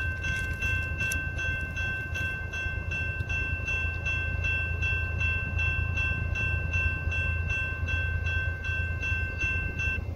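Low, steady rumble of an approaching freight train's diesel locomotives, with a steady high ringing tone and a quick regular ticking about three times a second over it; one of the high tones stops near the end.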